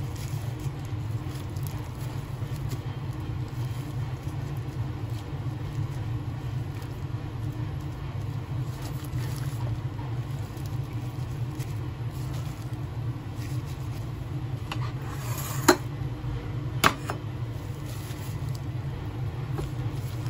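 Gloved hand handling raw marinated chicken wings on a ceramic plate: soft wet patting and plastic glove rustle over a steady low hum. Two sharp clicks about a second apart come about three quarters of the way through.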